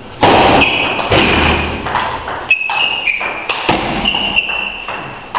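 A loud thump just after the start, then a table tennis ball clicking sharply half a dozen times at uneven spacing as it is bounced on the table and bats between points.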